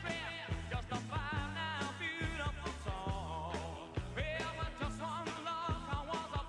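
Background music: a song with a sung melody over bass and a drum beat.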